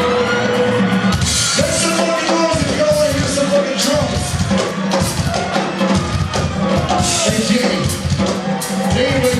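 Live reggae-punk band playing through a club PA: drum kit with kick and snare, bass and a melodic line that bends in pitch, loud and steady.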